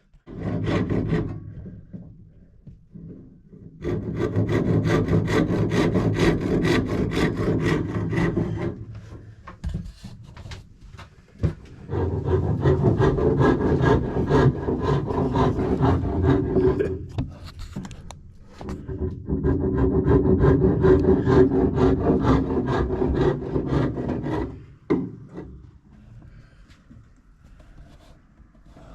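A hand or power tool working wood, a dense rapid rasping in three spells of about five seconds each, the first starting about four seconds in.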